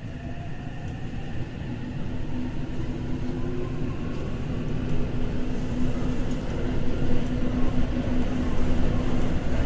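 Electric commuter train running through a subway tunnel, heard from inside the front car: rumbling wheels and a traction-motor whine that climbs in pitch, growing louder as the train picks up speed. A steady hum joins about two seconds in.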